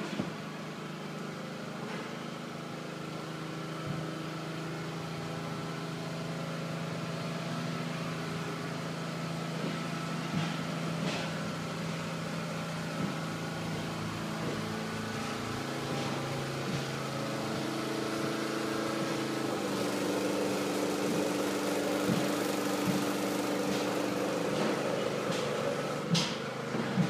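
An engine running steadily, its hum shifting in pitch partway through and growing slightly louder, with a few light knocks.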